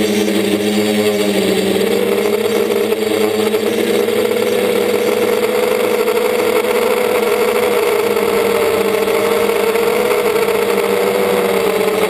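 DJI Flamewheel F450 quadcopter's electric motors and propellers running steadily, heard from the camera mounted on the frame, with a small shift in pitch about two seconds in.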